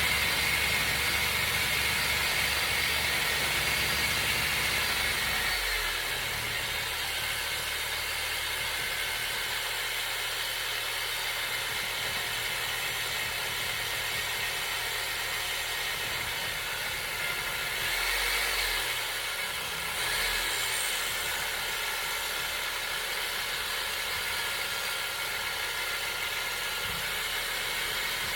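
Power saw cutting through cast iron drain pipe, a continuous mechanical whine over noise, slightly quieter after about six seconds.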